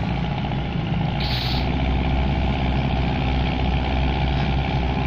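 Long-reach excavator's diesel engine running steadily, with a brief hiss about a second in.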